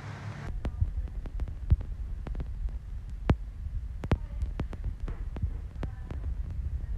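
Handling noise on a handheld phone's microphone: a low thumping rumble with scattered sharp clicks and taps, starting about half a second in.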